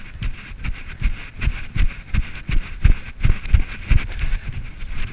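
Running footsteps, with a thump and rattle from the body-worn camera at each stride, about two to three a second. Near the end they turn to scrambling and crunching up into a pile of straw.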